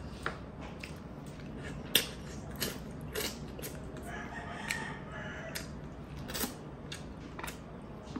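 Close-up eating sounds: wet mouth clicks and lip smacks while fish eyes stewed in vinegar broth (paksiw) are chewed and sucked. There are about ten sharp clicks, the loudest about two seconds in.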